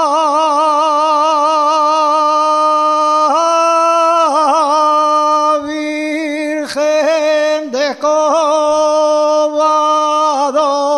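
Asturianada: a single unaccompanied voice singing long held, melismatic notes with vibrato and ornamental turns, with brief breaks near the middle.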